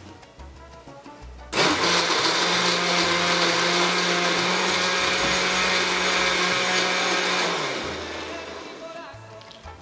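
Countertop glass-jar blender switched on about a second and a half in, running steadily at full speed for about six seconds as it purées a thick food mixture, then winding down.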